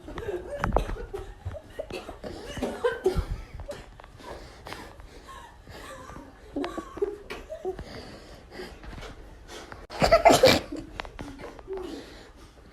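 Laughter throughout, with one loud sneeze about ten seconds in, set off by pepper spray.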